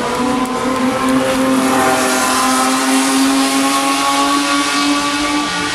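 A historic race car's engine running hard as it passes on the circuit: a loud, steady high note that drifts slightly lower over the few seconds.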